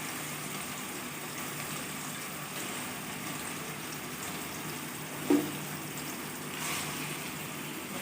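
Raw chicken pieces sizzling in hot oil in a pan, a steady frying hiss, with one sharp knock about five seconds in.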